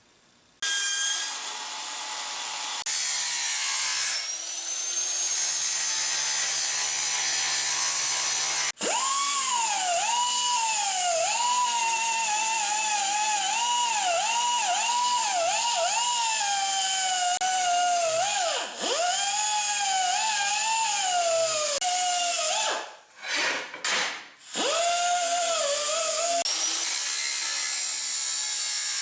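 Power tool cutting steel plate: a motor whine that sags in pitch and recovers again and again as the tool is pushed into the cut, over a steady hiss. The tool briefly cuts out and restarts twice near the end.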